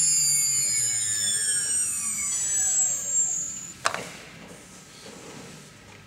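CNC router spindle whining as it spins down, its several tones gliding steadily lower over about four seconds, followed by a single sharp click.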